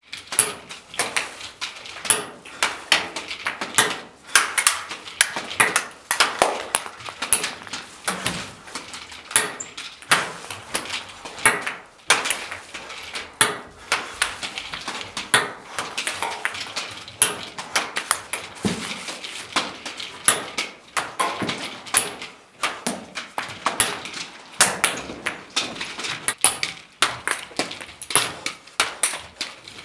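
Nunchaku striking ping pong balls: a continuous run of sharp, irregular clicks and taps, several a second.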